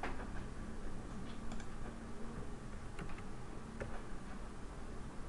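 A few scattered computer keyboard and mouse clicks, spaced well apart, over a faint steady hum.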